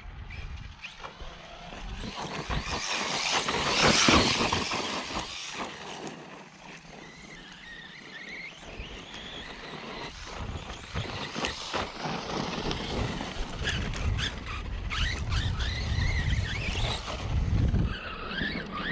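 Arrma Outcast 4S RC truck being driven on dirt: its brushless electric motor whines up and down in pitch with the throttle over the scrabble of its tyres. It is loudest about four seconds in.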